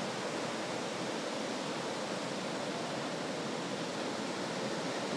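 Ocean surf, waves breaking and washing up a sandy beach: a steady rushing noise with no single crash standing out.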